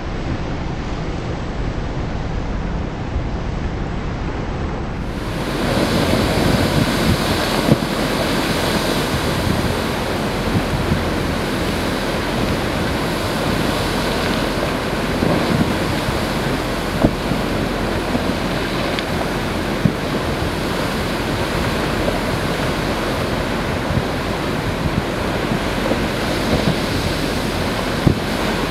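Steady rush of sea surf and wind on the microphone where lava pours into the ocean, with a few sharp cracks now and then. The noise grows fuller and a little louder about five seconds in.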